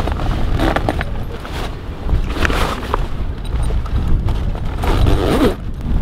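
Stiff sailcloth rustling and scraping as it is handled around the mast, in three bursts: about a second in, midway, and near the end. A steady rumble of wind on the microphone runs underneath.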